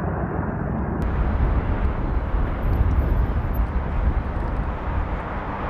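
AH-64 Apache military helicopters flying past at a distance: a steady low noise of rotors and turbine engines.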